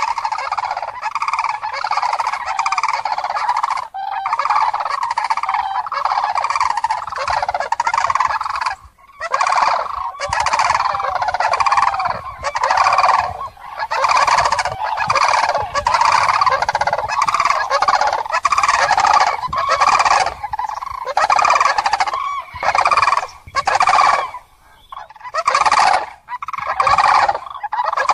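A flock of common cranes calling: loud, rolling trumpeting calls overlapping one another almost continuously, with a few short pauses, the longest about three-quarters of the way through.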